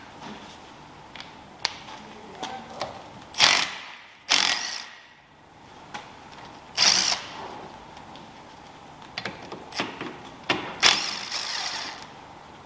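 Cordless drill-driver spinning a socket on the bolts that hold a car's rear stub axle and brake back plate, in four or five short bursts, with small metallic clicks and knocks between them.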